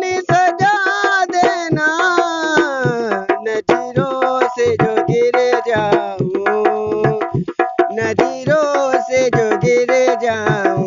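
Dholak drumming a fast, dense rhythm with pitch-bending strokes, under held and gliding melodic tones.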